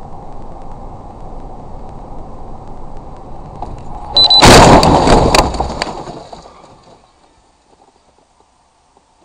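Car cabin noise of driving at speed, then about four seconds in a loud collision with an oncoming truck: a crash of several sharp impacts over about two seconds that dies away quickly.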